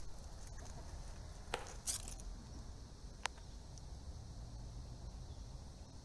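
Low, steady rumble of wind and handling noise on the microphone of a camera carried on a moving bicycle, with two short rustling flurries about a second and a half and two seconds in, and one sharp click just after three seconds.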